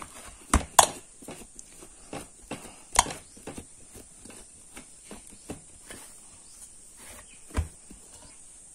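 Risen yeast dough being kneaded by hand in a steel bowl: irregular soft squishes and taps, with a few sharper knocks of the dough against the bowl.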